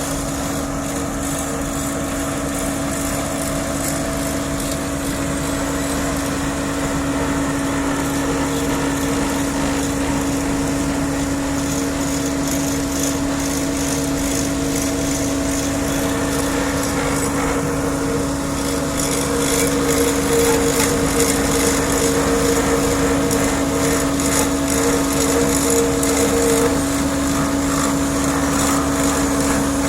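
Asphalt-paving machinery running: the diesel engines of an asphalt paver and a dump truck, a steady engine drone with a steady hum through it, growing louder about two-thirds of the way through.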